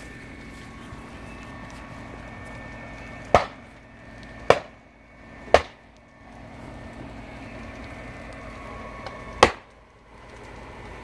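Four sharp bangs from gas canisters bursting in a burning lorry's load: three about a second apart, then a last one a few seconds later, over a steady background hum.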